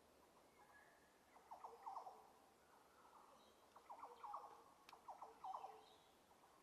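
Faint bird calls: short, quick chirps in three small groups.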